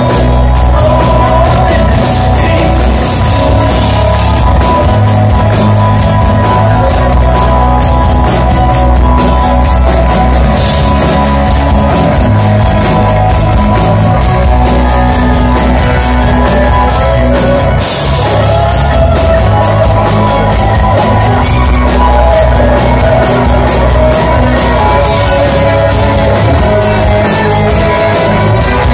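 Rock band playing live and loud: drums keeping a steady beat under bass, guitar and a male lead singer.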